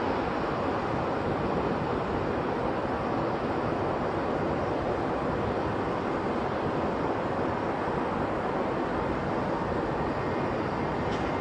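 Steady, even rushing roar of a Saab 340 turboprop airliner on its landing roll, heard from a distance and mixed with wind buffeting the microphone.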